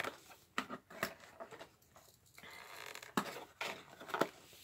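Cardboard box flap being pulled and torn open by hand: a series of short cardboard rips and scrapes, with a softer stretch of rustling in the middle.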